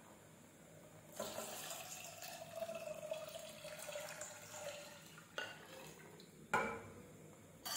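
Milk poured in a steady stream from a measuring jug into a saucepan of hot spiced tea brew. The pour starts about a second in and lasts about four seconds. Two short knocks follow near the end.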